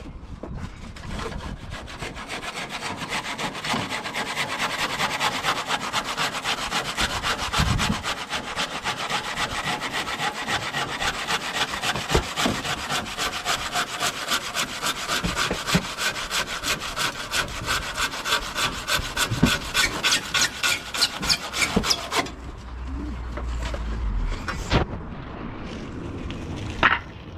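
Hand saw cutting through the end of a wooden pergola beam with quick, even back-and-forth strokes, stopping about 22 seconds in. A single knock comes near the end.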